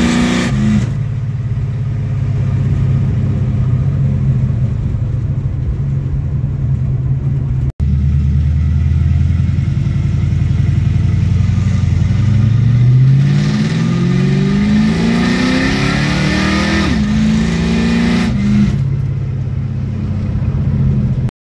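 1971 Dodge Demon's V8 engine pulling the car, steady at first, then accelerating: its pitch climbs for several seconds and drops sharply as the freshly rebuilt A-904 TorqueFlite automatic with a TF2 shift kit upshifts, then settles to a steady run.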